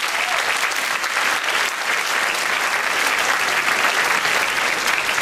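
A large audience applauding, dense steady clapping that carries on unbroken.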